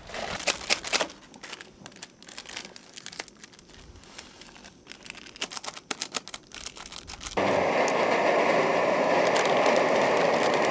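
Plastic ramyeon seasoning packet crinkling and being torn open over a steel pot: soft scattered crackles. About seven seconds in, a steady bubbling hiss from the pot of noodles boiling in broth starts abruptly and runs on.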